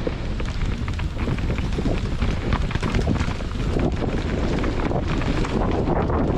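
Heavy wind noise buffeting the microphone at speed, over a rough rumble of mountain bike tyres on a dirt trail with many small knocks and rattles.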